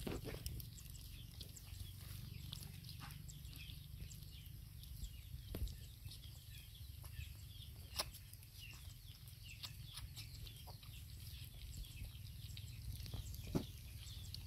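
Puppies eating from a dish: faint wet lapping and chewing clicks, with a few sharper clicks here and there over a low steady rumble.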